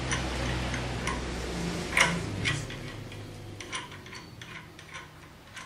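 Metal clicks and knocks from a small manual roller die-cutting press as its handle and adjusting parts are worked by hand: one sharp knock about two seconds in, then a scatter of lighter ticks, over a low hum that fades after the first couple of seconds.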